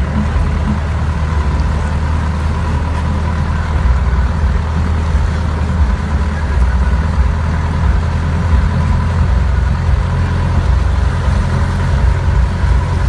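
A vehicle's engine running steadily with a deep rumble as it drives through floodwater, with water churning and splashing along its side.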